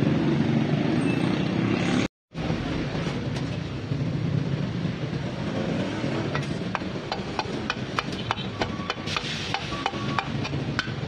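Rubber mallet tapping on the aluminium crankcase of a Honda CB125 engine as the case halves are knocked together: light sharp taps, sparse at first and then a few a second in the second half, over a steady low background noise with a brief break about two seconds in.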